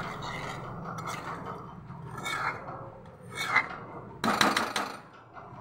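A spoon scraping and stirring in a metal pan of simmering chicken curry gravy: a few short rasping strokes, the loudest cluster just over four seconds in.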